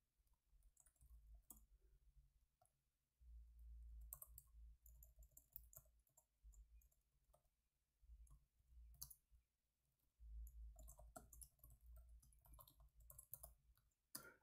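Faint computer keyboard typing: scattered, irregular key clicks, with a faint low rumble that comes and goes.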